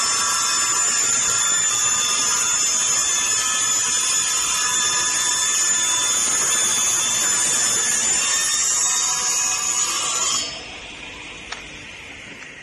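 Woodworking board-cutting saw machine running loud and steady with a high whine. About ten seconds in the sound drops sharply, and a fainter tone falls in pitch and fades, with one click soon after.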